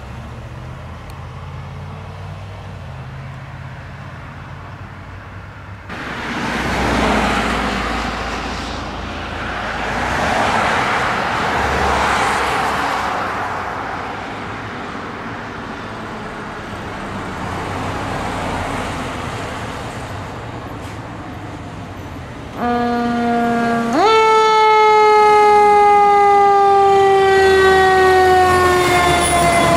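Fire rescue truck coming by on an emergency response: engine rumble and a rushing noise that swells and fades, then about 23 seconds in its loud warning siren or horn starts, jumps up in pitch and slides slowly downward as the truck passes.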